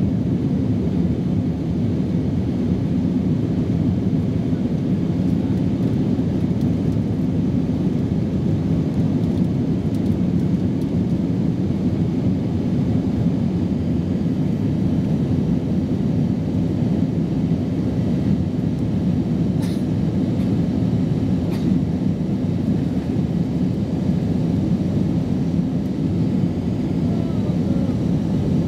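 Steady low roar inside an Airbus A320's cabin as it climbs after take-off: jet engine and airflow noise at an even level, with two faint clicks about two-thirds of the way through.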